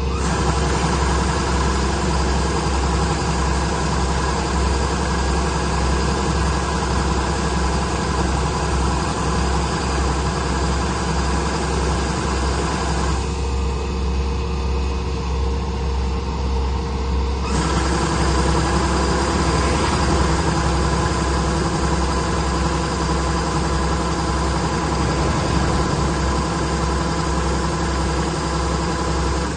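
Engine of a heavy farm machine running steadily with a deep low hum. Its sound changes abruptly about thirteen seconds in and again about four seconds later.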